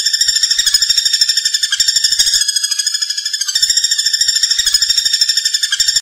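Common flameback woodpecker (pelatuk bawang) calling: a long, rapid, high-pitched rattling trill of quick notes, about ten a second, kept up with hardly a break.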